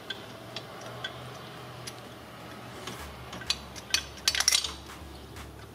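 Ratchet wrench worked on a bolt: scattered light metallic clicks and clinks, with a quick run of clicks a little past halfway. A faint low hum comes in about halfway.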